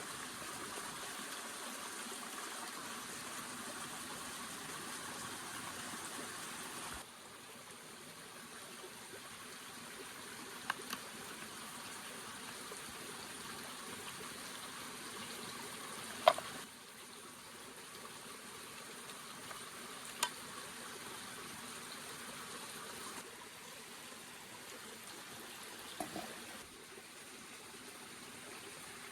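Steady noise of moving water, its level stepping down and back up several times, with a few sharp clicks; the loudest click comes a little past halfway.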